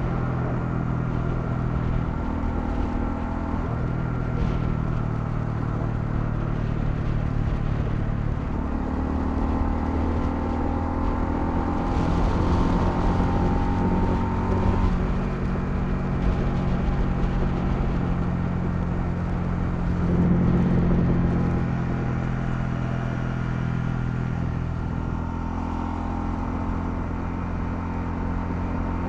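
Honda CL250's single-cylinder engine running under way, its pitch stepping up and down several times as throttle and gears change. Wind and road noise rush underneath.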